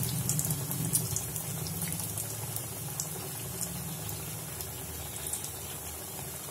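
Breaded potato tikkis deep-frying in hot mustard oil in a pan: a steady sizzle and bubbling with scattered small crackles, slowly getting quieter. The patties are frying on their second side.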